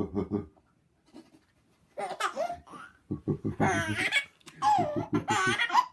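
A baby of nearly six months laughing in repeated bursts from about two seconds in, while a man makes low, rhythmic monkey sounds.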